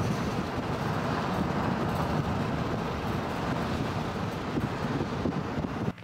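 Steady wind and road noise from a moving car, an even rush over a heavy low rumble.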